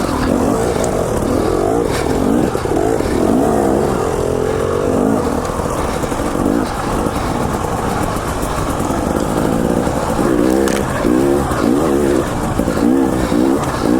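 KTM 300 XC-W TPI's fuel-injected two-stroke single revving up and down in quick surges under constantly changing throttle while riding, with a run of rapid throttle blips near the end.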